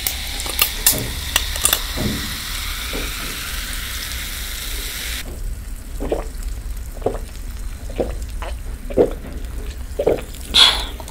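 Cola poured from a can into a glass, its carbonation fizzing in a dense hiss with a few small clicks, which stops abruptly about five seconds in. Then a series of swallows, about one a second, as the cola is drunk.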